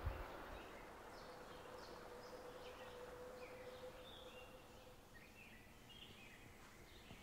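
Faint, short chirps of small birds scattered over quiet outdoor hiss, with a faint steady hum that fades out about five seconds in.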